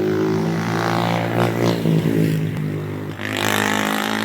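An engine running steadily, its pitch shifting slightly about three seconds in.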